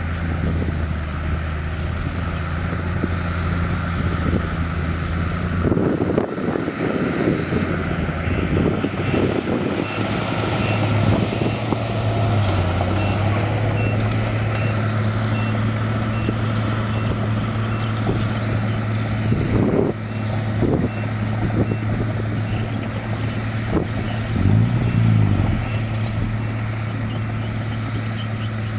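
Heavy diesel machinery running, the dump trucks and bulldozer at work, with the engine pitch shifting and briefly revving near the end. A reversing beeper sounds a steady series of beeps for about ten seconds in the middle, and there are bursts of clanking and rattling.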